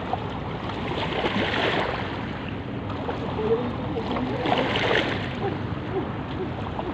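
Seawater lapping and sloshing close to the microphone, a steady watery wash, with faint distant voices.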